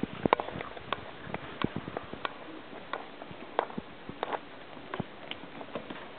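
Irregular light taps and clicks, roughly one every half second to a second, in a large room with a faint background haze.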